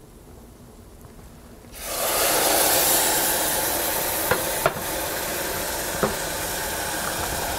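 Hot stock poured onto sautéed arborio rice in a hot stainless pot: a sudden loud hiss about two seconds in that settles into steady sizzling and bubbling. A few short knocks, likely the wooden spoon against the pot, sound over it.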